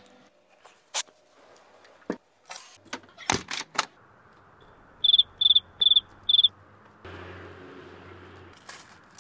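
A cricket chirping four times in quick succession, high and clear, after a few sharp knocks. A low hum comes in near the end.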